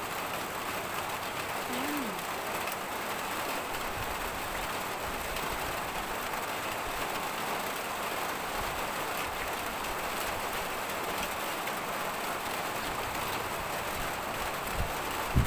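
Steady rain falling, an even hiss, with a single soft thump near the end.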